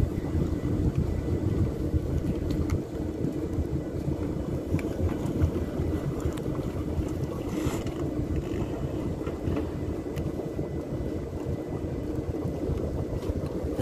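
A motorboat's engine running low and steady while the boat moves slowly, mixed with wind rumbling on the microphone.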